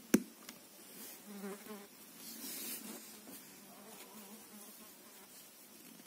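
Knitting needles clicking and yarn rubbing softly as stitches are worked by hand, with one sharp needle click just after the start. A faint low buzzing hum comes and goes underneath.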